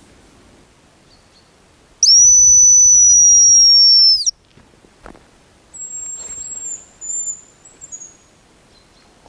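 Hazel grouse decoy whistle blown in one loud, steady, high-pitched note of about two seconds. A single click follows, then a few fainter thin high whistles: one longer note and shorter ones.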